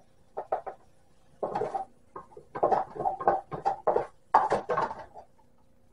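Wooden spatula scraping a nonstick skillet and knocking against a plastic container while a mashed cauliflower mixture is scooped out. The sound comes as a run of short, irregular scrapes and knocks.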